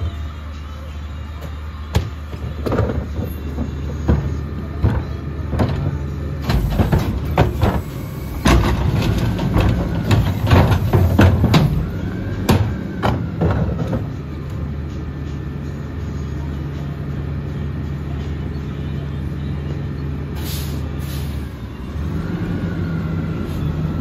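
Mack LEU McNeilus garbage truck's diesel engine idling steadily, while plastic garbage carts are tipped by hand into its steel Curotto-Can carry can with a run of loud bangs and clatters. More knocks follow later, and near the end the engine note steps up to a higher idle.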